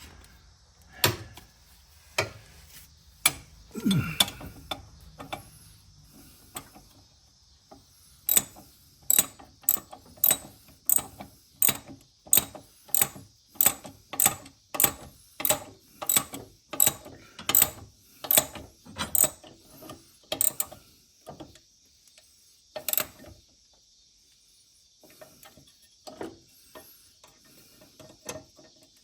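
SK ratchet wrench clicking as it turns a fastener, with a steady run of sharp clicks at about one and a half a second for some twelve seconds. A few scattered clicks and knocks come before the run and after it.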